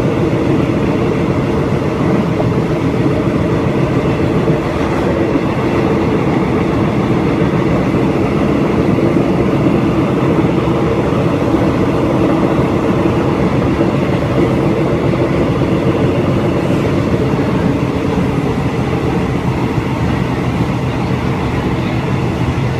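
Passenger train running at speed, heard from on board: a steady, loud rumble of the wheels on the rails.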